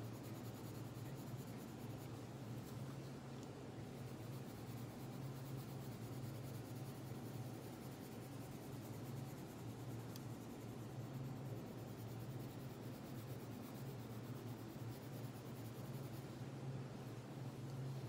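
Coloured pencil scratching steadily on paper as an area is shaded in, over a steady low hum.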